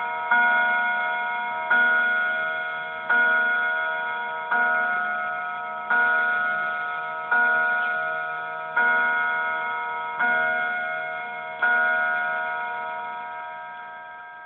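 Smiths mantel clock striking the hour at twelve o'clock: nine evenly spaced strokes about one and a half seconds apart, each a ringing, multi-toned chime that slowly fades. The last stroke, a couple of seconds before the end, rings away.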